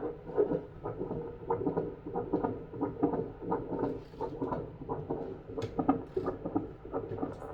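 A hospital-grade Doppler fetal heart monitor's loudspeaker giving out an adult's heartbeat picked up by its probe. It is an even, pulsing whoosh at about 80 beats a minute, with a few scratchy clicks from the probe.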